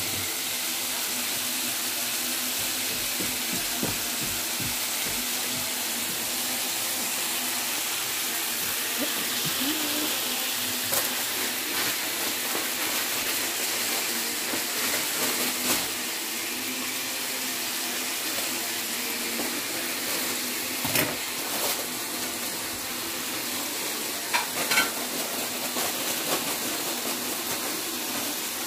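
Chicken pieces and carrot strips sizzling steadily in a hot pan while being stir-fried with a wooden spatula, with a few knocks of the spatula against the pan.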